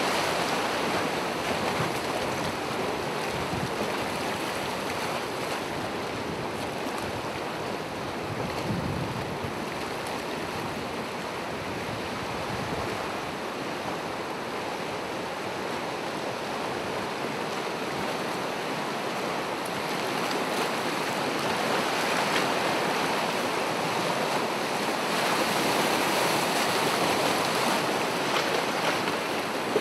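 Gentle ocean surf washing onto the shore: a steady hiss of waves that swells louder in slow surges, most noticeably in the last third.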